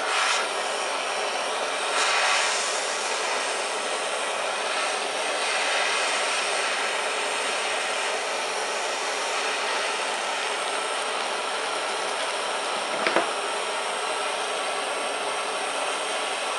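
Gas torch flame burning with a steady hiss as it heats a connecting rod's small end for a press fit onto the piston pin. A brief tick sounds about thirteen seconds in.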